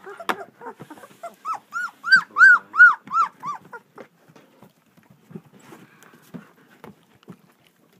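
Two-week-old German Shepherd puppy whining: a run of about nine short rising-and-falling cries, roughly three a second, loudest in the middle, then dying away to faint soft sounds.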